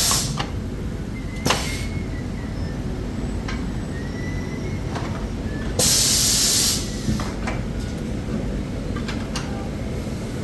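Factory machinery running steadily, with sudden bursts of hissing compressed air: a short one about one and a half seconds in and a louder one lasting about a second near the middle. Faint clicks and knocks come in between.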